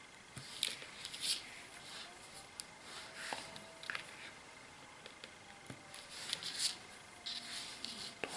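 Electronics side cutters snipping thin stranded hookup wire into short lengths, with faint rustling and light clicks as the wire is handled.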